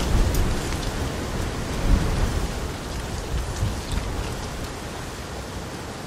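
Rain falling onto still water: an even hiss of rain with scattered individual drops ticking, over a low rumble that is strongest in the first couple of seconds and slowly eases off.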